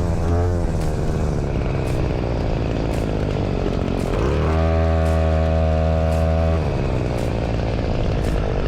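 Small gasoline engine running as the machine is driven, with a steadier, stronger tone held for about two seconds in the middle.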